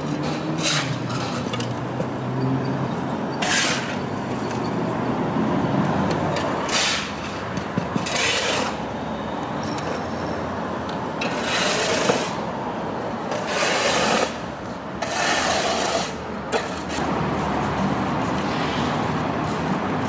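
Square-nosed shovels scraping across a concrete slab and tipping dusty concrete debris into a wheelbarrow: a series of short, harsh scrapes every second or two. A low steady hum sits under the first few seconds.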